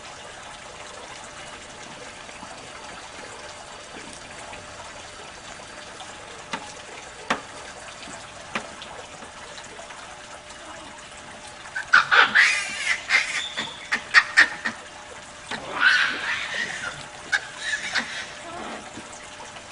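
Steady trickle of running water with a few sharp clicks, then two spells of loud, high-pitched animal calls, about 12 and 16 seconds in.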